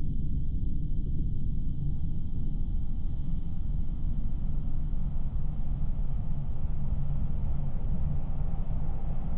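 Steady low rumble of a fishing boat under way in rough sea: the engine's drone mixed with wind and the churning wash of the wake.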